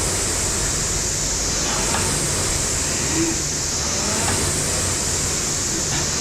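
Air-resistance rowing machine, a Concept2 knock-off, whirring steadily as its fan flywheel spins. The rush swells and eases about every two seconds with each stroke.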